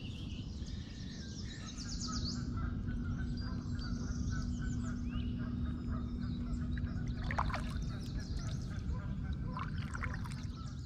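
Riverside outdoor ambience: a steady low rumble with small birds chirping here and there and honking waterfowl calls near the end. A steady low hum runs through about the first half.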